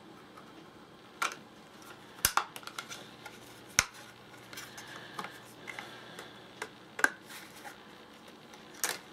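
About half a dozen sharp plastic clicks and knocks, scattered irregularly, with softer ticks and rustles between, as the silicone outer skin of an OtterBox phone case is pried and peeled off its hard plastic shell.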